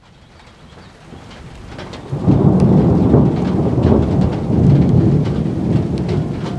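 Thunder rumbling over falling rain: the sound fades in, then a loud low rumble breaks in about two seconds in and carries on, with scattered sharp raindrop ticks.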